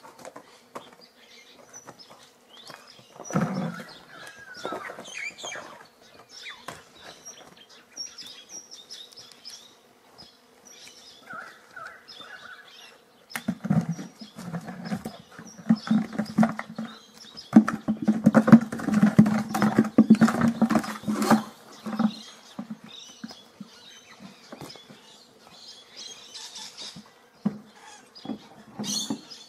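A dog playing rough with a plastic flower pot on bare dirt: bursts of knocking, clattering and scraping, busiest through the middle. Birds chirp faintly in the background.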